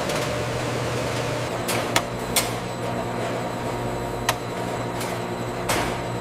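Steady hum of factory machinery, with a few sharp clicks or knocks at irregular intervals.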